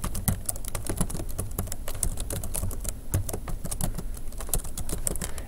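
Typing on a computer keyboard: a quick, uneven run of keystroke clicks.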